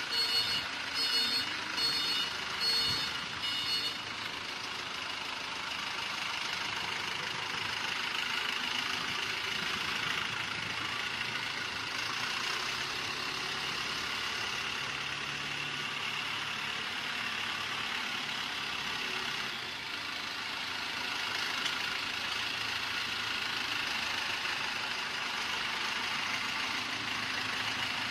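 Ricardo-engined 400 kW diesel generator set running at a steady speed. For the first four seconds or so, a high electronic beep repeats about twice a second over it, then stops.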